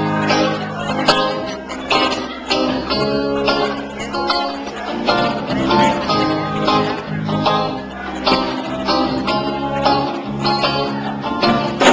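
Guitar strummed in a steady rhythm, chords struck about twice a second over sustained low notes, in a live song performance.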